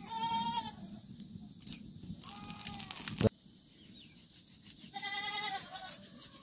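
A goat bleating three times, short high wavering calls about two and a half seconds apart. A single sharp click is heard between the second and third calls.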